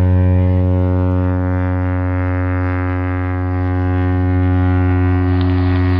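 Cruise ship's horn sounding one long, deep, steady blast.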